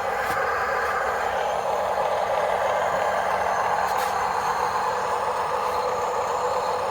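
Small electric motors and plastic gearboxes of radio-controlled construction models whirring steadily, with a couple of brief clicks.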